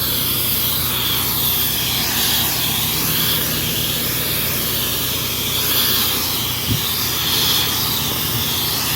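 Pressure washer running steadily, its engine humming under the constant hiss of the wand spraying a downstreamed house-wash mix at low pressure.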